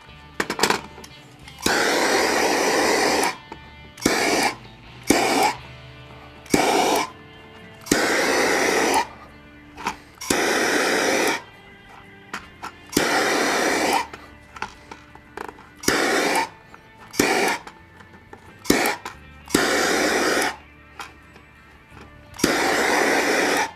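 Handheld propane torch fired in short blasts, about ten bursts of flame hiss that switch on and off abruptly, each lasting up to about a second and a half, with a few clicks between. It is heating vinyl wrap on a polymer magazine so the wrap conforms.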